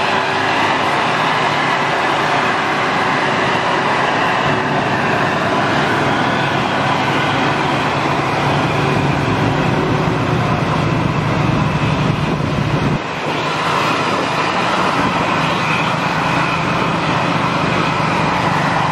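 Mercedes-Benz coach's rear-mounted diesel engine labouring steadily up a steep grade, heard from close behind. The sound dips briefly about thirteen seconds in. The bus is not yet fully repaired and is very short of power on the climb.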